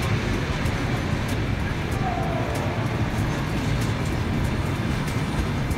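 Steady low rumble of a moving vehicle, with faint irregular clicks.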